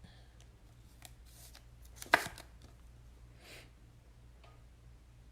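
Trading cards and their holders being handled on a table: light clicks and slides, with one sharp knock about two seconds in as something is set down, and a brief swish a little later.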